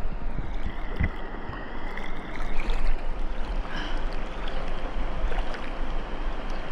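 Deep river water sloshing and splashing up close as a hiker wades through it.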